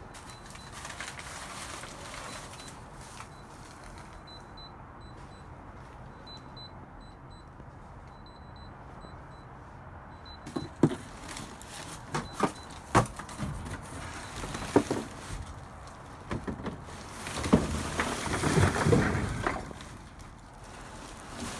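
Faint, high-pitched electronic beeping from an unidentified device buried in a dumpster, short pips in small groups. From about halfway, sharp knocks and rustling of things being moved about, loudest near the end.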